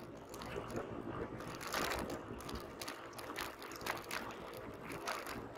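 Mountain bike rolling over a block-paved road: a low rumble of the tyres with irregular rattling clicks from the bike as it jolts over the paving stones.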